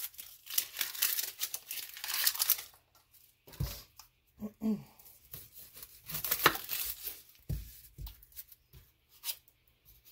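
Dry, papery onion skin being peeled and torn off by hand, crackling in two stretches. A few dull knocks of a chef's knife on a wooden cutting board come in between and near the end.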